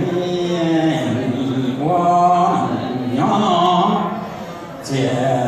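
A man chanting in Hmong into a handheld microphone, in slow phrases of long held, gliding notes. There is a short break just before the end, then a new phrase begins.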